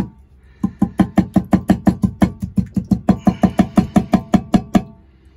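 A black plastic sink drain pipe section knocked repeatedly against a stainless steel bowl to shake out the clog of baking-soda sludge inside it: a fast, even run of about five knocks a second for some four seconds. From about three seconds in, the bowl rings faintly with each knock.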